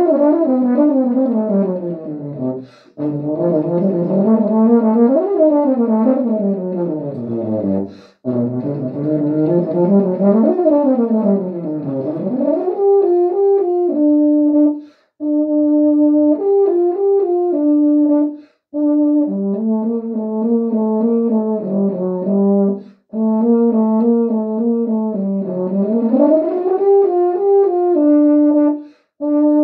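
Unaccompanied euphonium solo: for the first dozen seconds the euphonium plays fast runs sweeping up and down through its low and middle range. After that it moves to a slower line of short repeated and held notes, broken by several brief pauses.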